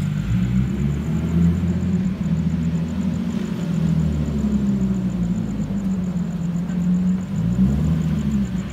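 Turbocharged Nissan 350Z's V6 engine running at low revs as the car rolls slowly up and pulls in, its note dipping and rising again near the end.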